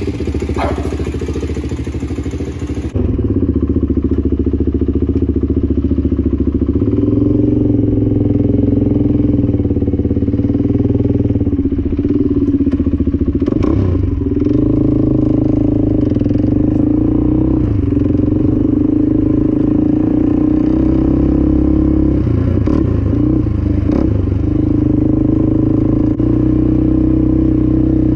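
A 400 cc sport quad's engine running as the ATV is ridden, its note dipping and rising a few times with the throttle.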